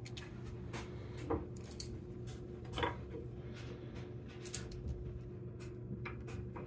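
Light, scattered metallic clicks and clinks as a lathe spindle and its thrust bearing are handled and the spindle is slid through the headstock, with a few slightly sharper knocks among them.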